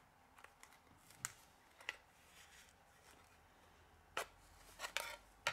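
Faint, sparse clicks and light scraping of a plastic guitar pick prying around a Xiaomi Mi 5C phone's housing as its cover is lifted off, with a small cluster of clicks about four to five seconds in.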